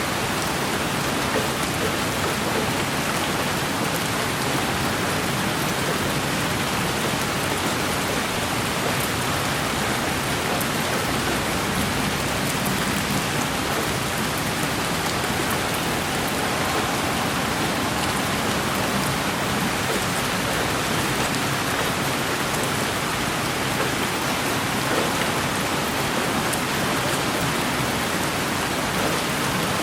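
Steady rain falling on a surface, an even continuous hiss with scattered faint drop ticks.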